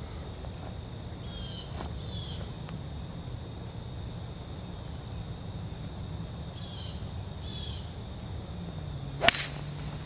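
Golf iron striking the ball off a bare dirt lie: a single sharp crack about nine seconds in, after a long quiet setup.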